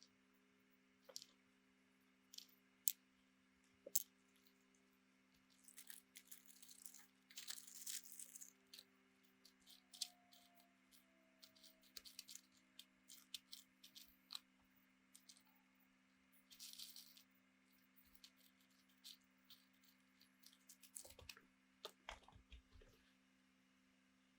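Faint workbench handling sounds: scattered sharp clicks and taps and a few short scrapes, as of small tools and parts being picked up and set down, over a steady low hum. A cluster of soft knocks comes near the end.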